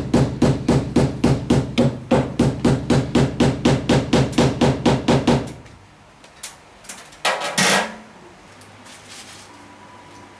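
Rapid, even hammering, about four blows a second for some five seconds, then a few light knocks and a short rasping noise.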